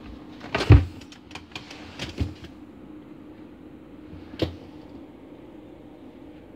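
Knocks and light clattering on furniture: a loud thump under a second in, a quick run of clicks and knocks over the next second and a half, and one more sharp knock about four and a half seconds in, over a faint steady hum.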